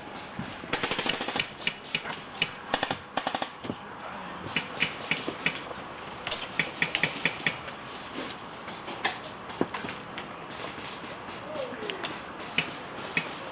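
Airsoft guns firing: single shots and short rapid bursts of sharp clicking pops.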